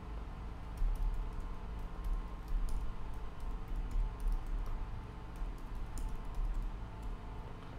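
Keys tapped on a computer keyboard in short, uneven runs while a terminal command is typed, over a low steady hum.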